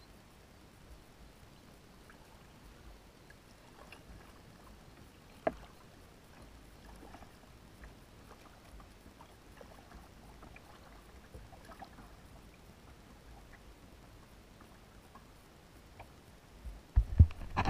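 Kayak paddling: faint, scattered water splashes and drips from paddle strokes, with one sharp click about five and a half seconds in. Near the end comes a loud low rumbling.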